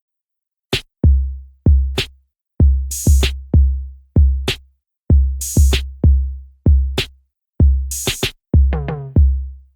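Background electronic music: a drum-machine beat that starts out of silence about a second in. Deep booming kick drums repeat with long decays, and a crisp high hit lands about every two and a half seconds.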